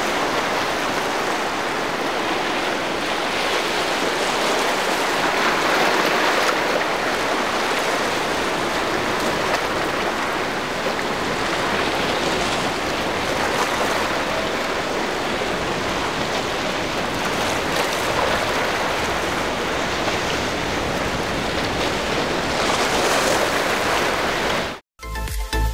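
Steady rush of surf and churning water, with no distinct engine note. It cuts off abruptly less than a second before the end, and music begins.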